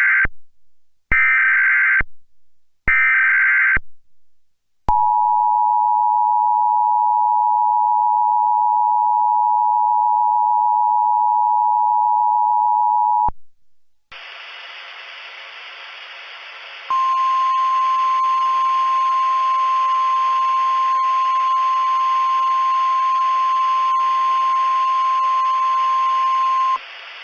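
Emergency Alert System tones announcing a tornado warning. Three short warbling bursts of SAME header data come first, then the two-tone EAS attention signal held for about eight seconds. Then a hiss of radio static starts, and the steady 1050 Hz NOAA Weather Radio warning tone sounds over it for about ten seconds.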